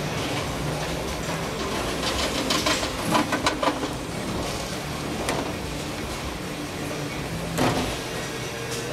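Bowling alley pinsetter machine running as it resets a full rack of pins, a steady mechanical hum with a run of clattering clicks about two and a half seconds in and a couple of single knocks later.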